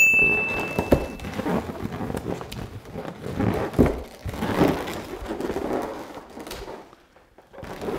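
Latex balloons rubbing and knocking together as they are twisted and tied into a cluster, with soft thumps. A short electronic notification tone sounds in the first second.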